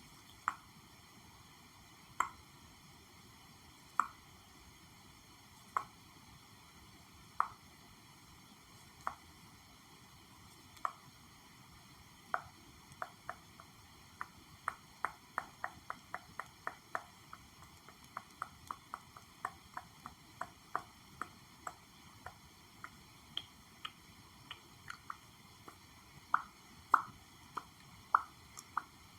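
Gentle tapping on an object, one light tap every couple of seconds at first. About twelve seconds in the taps quicken into an uneven run of several a second, with a few louder taps near the end.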